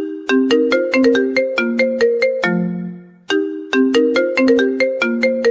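Mobile phone ringtone melody: a quick phrase of short, sharply struck notes that die away, ending on a lower, longer note. The phrase repeats about three seconds in.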